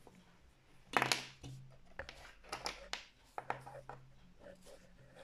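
Handling noise from fingers moving a small plastic LEGO minifigure right by the microphone: scattered sharp plastic clicks and scratchy rubs, loudest about a second in, over a faint low hum.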